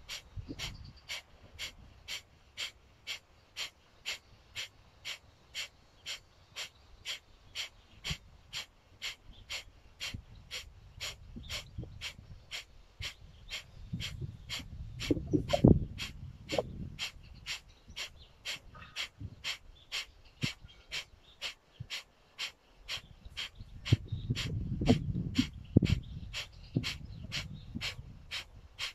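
Breath of fire (Kundalini yoga kapalabhati-style breathing): quick, forceful exhalations through the nose, driven by the abdomen, in a steady rhythm of about two to three a second. Two louder stretches of low rumble come through around the middle and again near the end.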